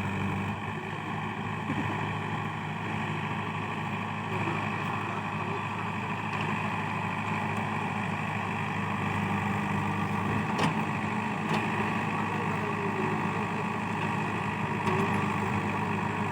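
JCB 3DX backhoe loader's diesel engine running steadily, with two short sharp knocks about two-thirds of the way through.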